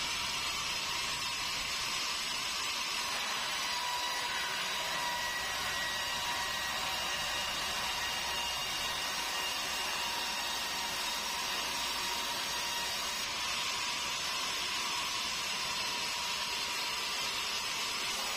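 Vertical band saw mill running and sawing meranti bukit timber into boards: a steady, even hiss with a few faint high whining tones.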